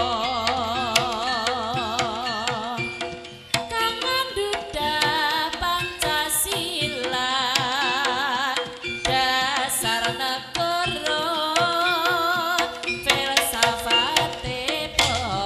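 Live Javanese jaranan music: a wavering, pitch-bending melody line over frequent, steady drum strokes.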